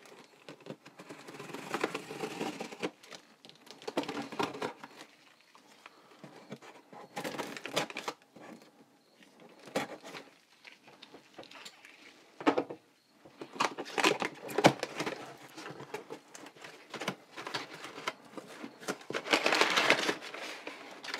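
Cardboard shipping box being opened: packing tape slit with a knife and pulled off the cardboard in irregular scrapes and rips. Near the end, crumpled kraft packing paper crinkles loudly as it is handled.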